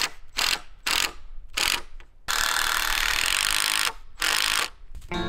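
Steel tape measure blade rattling out in three short pulls, then one longer run of about a second and a half, and one more short pull near the end.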